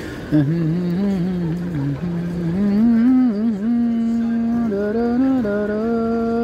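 Arabic song: a man's voice sings a long wordless, ornamented phrase that climbs in pitch and then settles into held notes.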